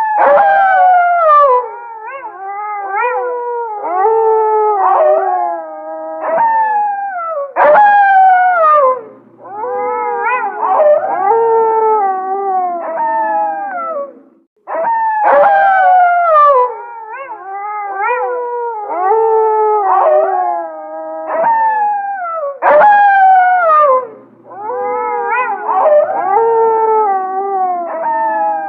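A pack of wolves howling in chorus: several long, overlapping howls that glide down and up in pitch, with short higher calls among them. The same passage repeats about halfway through.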